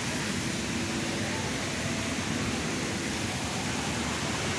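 Ornamental fountain's jets splashing into its stone basin: a steady rush of falling water.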